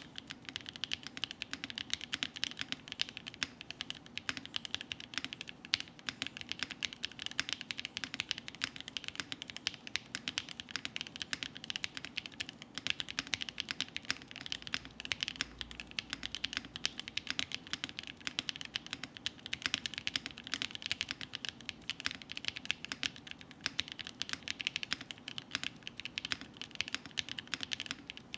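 Steady, fast typing on a TKD Part 1/75 custom mechanical keyboard with Gateron Sage linear switches, lubed, filmed and spring-swapped, under Keykobo Violet on Cream keycaps: a dense run of keystroke clacks that stops right at the end.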